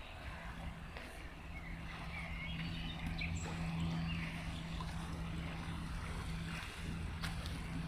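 River water running, with small birds chirping now and then, over a steady low hum. A few sharp clicks come near the end.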